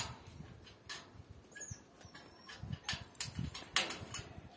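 A metal rod knocking and clicking against a hanging lamb carcass: one sharp click at the start, then scattered lighter taps and a few dull knocks.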